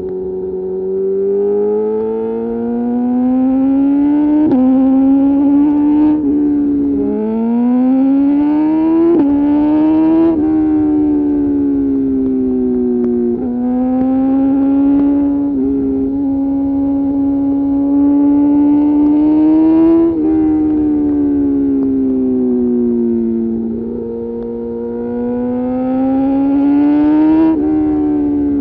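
2021 BMW S1000RR inline-four engine breathing through an Austin Racing GP1R full exhaust with Inconel headers and titanium pipe, heard from the rider's seat under way. The note keeps climbing and easing with the throttle, with a sudden drop about seven seconds in as it shifts up a gear.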